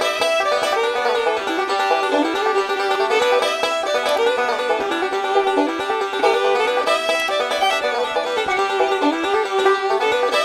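Background music: a bluegrass-style tune led by a picked banjo, playing steadily throughout.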